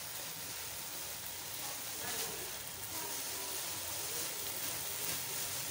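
Chicken curry with potato, capsicum and onion sizzling as it fries in oil in a pot, a steady crackle at the bhuna (frying-down) stage.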